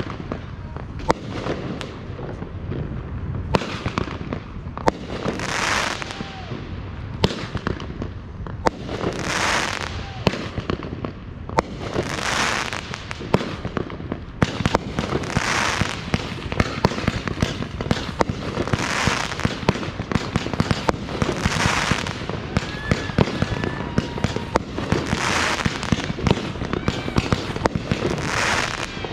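Fireworks going off: a dense crackle of sharp pops and bangs, with a hissing swell rising and fading about every three seconds.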